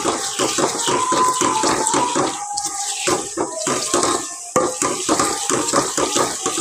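Wooden spoon stirring and scraping quickly around a metal pot, with quick repeated scrapes over a steady sizzle. Onions, tomatoes and ginger-garlic-green-chilli paste are frying in oil: the masala base of a curry being cooked.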